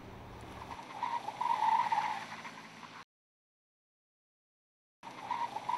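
Faint background noise with a soft hum-like band that swells for about a second, then complete silence for about two seconds at a cut, after which the faint noise returns.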